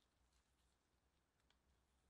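Near silence, with faint crackles and a couple of soft ticks, the clearest about one and a half seconds in, as a baked corn bread is pulled apart by gloved hands.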